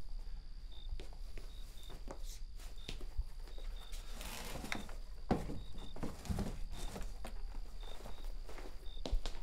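Someone rummaging through cardboard boxes and handling shoes and clothes: scattered rustling, scrapes and soft knocks, busiest in the middle. A faint short high chirp recurs every second or so underneath.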